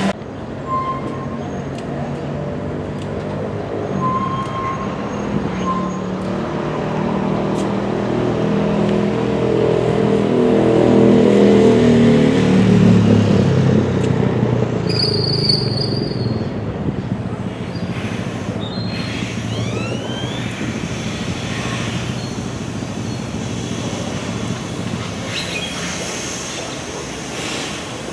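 Heavy freight train passing: a diesel locomotive engine runs loudest about twelve seconds in, its pitch falling as it goes by, followed by the steady rumble of loaded railcars rolling on the rails.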